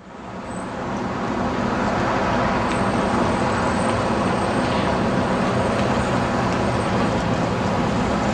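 Steady city street traffic noise, a dense rumble of passing vehicles, fading in over the first couple of seconds. A faint high whine sits over it for a few seconds in the middle.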